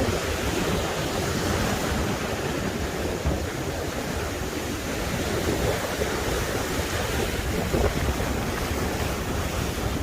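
Sea waves and wind: a steady wash of surf noise, with wind buffeting the microphone in a low rumble.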